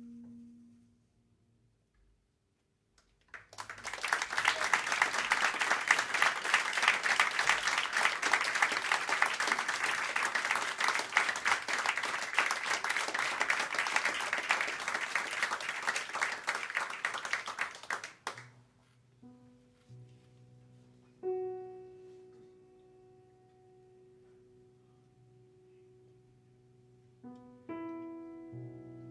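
A held closing note fades out, and after a short pause the audience applauds for about fifteen seconds. Once the clapping stops, a piano starts the next tune with sparse, slow chords over low notes.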